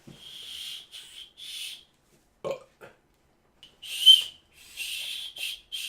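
A small whistle blown in a string of short, airy toots on one high pitch, about seven in all, with a pause in the middle.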